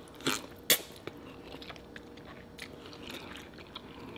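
Mouth sounds of eating pasta noodles: two short, loud slurps within the first second, then soft chewing with small wet clicks.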